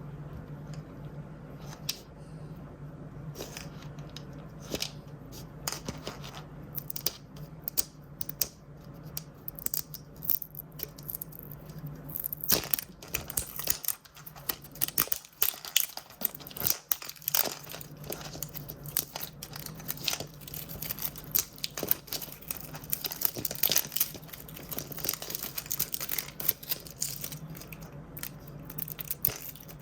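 Blind-bag toy packaging being torn and crinkled by hand: a run of crackles and rustles that grows busier about halfway through, over a steady low hum.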